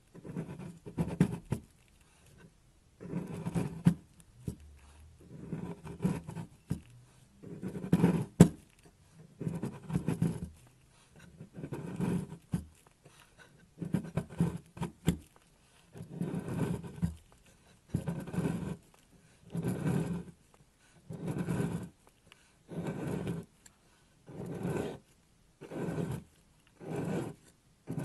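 Knife blade scraping and cutting through a bar of dry, crumbly soap, shaving off flakes in repeated strokes about every one and a half to two seconds, each with a crackly crunch.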